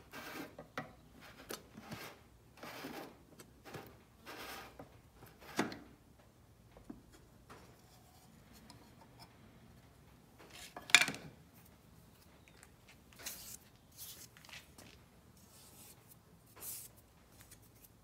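A metal paint can being handled and its lid worked off, with short scraping and rubbing sounds. Partway through comes a single sharp knock, then lighter scrapes of metal on the workbench.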